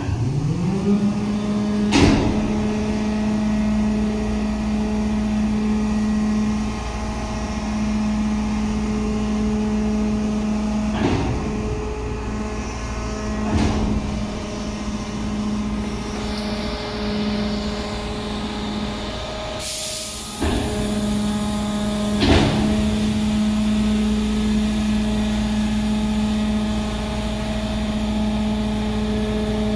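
ISUZU FTR compactor truck's diesel engine and hydraulic pump speed up as the compactor control is pressed and run steadily while the packer plate cycles through its compaction stroke. There are about four sharp clunks from the mechanism, and a brief high hiss with a short break in the running about two-thirds of the way through.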